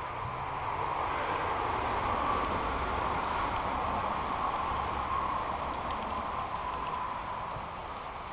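Insects calling in a steady high-pitched chorus over a broad rushing noise that swells through the middle and eases off near the end.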